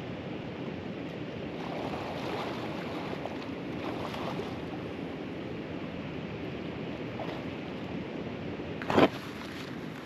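A steady rush of water with wind, and one brief loud knock about nine seconds in.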